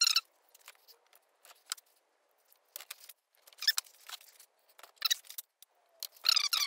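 A string of short, irregular squeaks as adhesive foam weather-stripping is pressed and rubbed along the metal door frame, with gaps between them; the loudest comes near the end.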